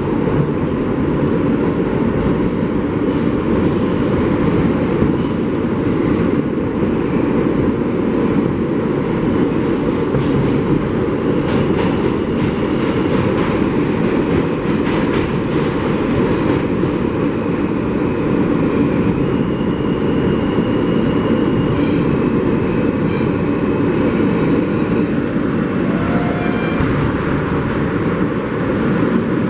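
New York City subway train running along the track: a steady, loud rumble and rattle of wheels and car. Thin high squeals come and go in the second half.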